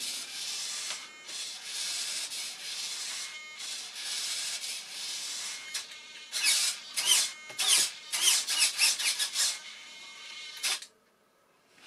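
A steady rubbing hiss, then a run of short whirring bursts from the glider's small servos as the tail control surfaces are moved and checked for centring.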